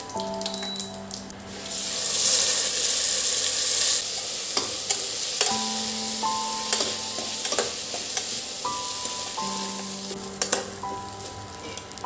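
Cumin seeds and rice sizzling in hot fat in a stainless steel pressure cooker, the sizzle swelling loud about two seconds in and then carrying on more softly. A spatula scrapes and clicks against the steel as the rice is stirred.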